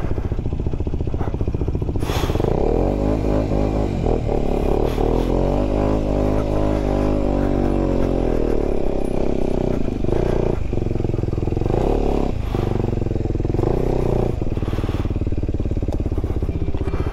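Motorcycle engine running under load, its revs rising and then falling for several seconds, followed by a few sharp knocks and clatters.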